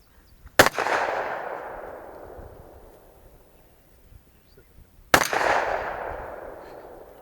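Two gunshots about four and a half seconds apart, each cracking sharply and followed by a long echo that rolls away over a couple of seconds.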